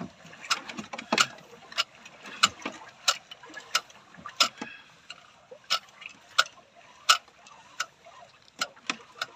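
Fishing reel clicking in a steady rhythm of sharp ticks, about three every two seconds, as line is cranked in against a heavy stingray bending the rod.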